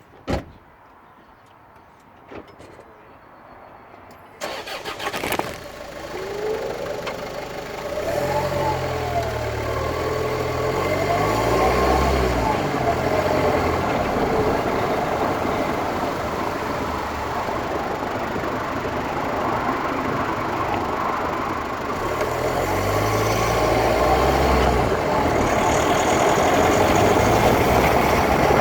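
Land Rover Freelander 2 starting and pulling away: a sharp click near the start, the engine catching about four seconds in, then engine and road noise building as it drives, with a whine that rises and falls in pitch twice. The car has a grinding noise that a replaced rear differential has not cured.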